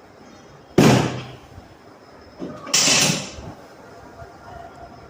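Two sudden loud thuds on a chiropractic treatment table during adjustment thrusts. The first is sharp, about a second in. The second is longer and rustling, around three seconds in.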